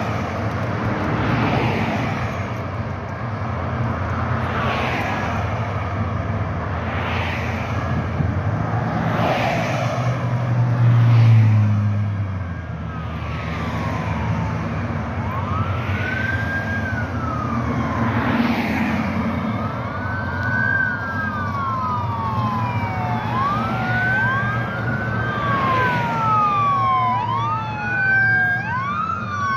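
Road traffic running past, one vehicle loudest about eleven seconds in. From about halfway, a police car siren wails, rising and falling about every two seconds and growing louder as it approaches.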